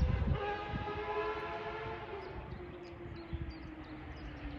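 Motorbikes passing by, their engine note a steady pitched drone that slowly falls in pitch as they go past.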